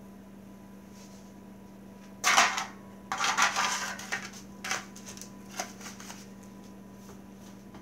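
Disposable aluminium foil loaf pans being handled on a countertop, crinkling and knocking in a few short bursts from about two seconds in. The first bursts are the loudest; the later ones are smaller.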